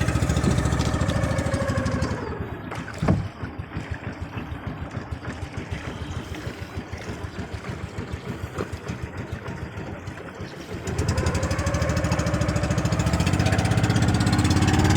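Small boat engine running, then dropping to a slow, evenly chugging idle about two seconds in, with one sharp knock soon after. Near eleven seconds it revs back up and runs steadily and loudly again.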